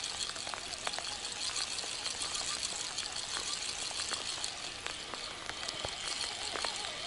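Steady rain falling on the water, with scattered sharp ticks of single drops.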